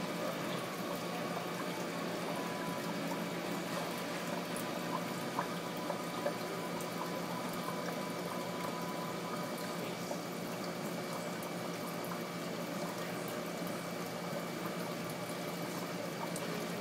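Steady trickling, bubbling water of a running aquarium, with a faint steady hum and a couple of small clicks about five and six seconds in.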